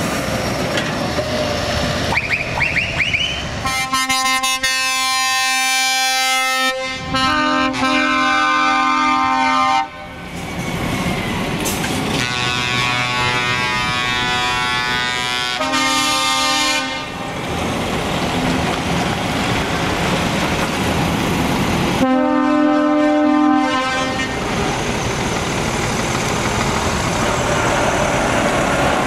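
Heavy truck tractor units driving off one after another with their diesel engines running. Four long blasts of a chorded air horn sound over the engines: two back to back near the start, each about three seconds, then two shorter ones of a second or two.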